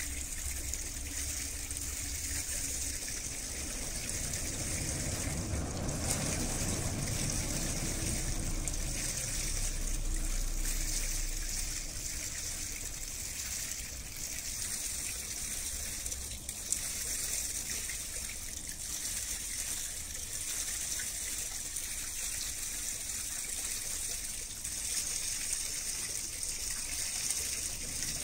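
Steady rushing and splashing of water, with a low rumble that swells and fades between about four and twelve seconds in.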